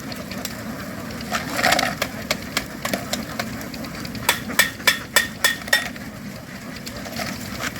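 A steady low background noise with scattered knocks, and about halfway through a quick run of about six sharp ringing clinks, like metal striking metal.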